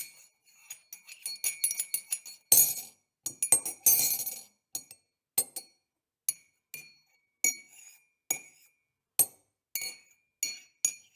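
Spoon stirring and clinking against the inside of a mug: quick runs of clinks in the first half, then slower single taps about every half-second to second, each with a short ring.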